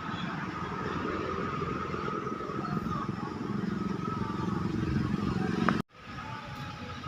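Steady road-traffic noise, with motorcycle and car engines running past. About six seconds in it cuts off abruptly for a moment, then a similar but quieter traffic din resumes.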